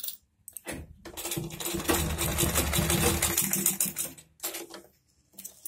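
Usha sewing machine running, stitching a zipper onto track-suit fabric: a run of rapid needle stitching starting under a second in and lasting about three seconds, followed by a few short handling sounds near the end.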